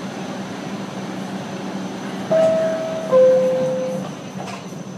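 A New York City subway car's door chime sounds two descending tones, a higher one and then a lower one, a little over two seconds in. It is the signal that the doors are closing, heard over the car's steady running hum.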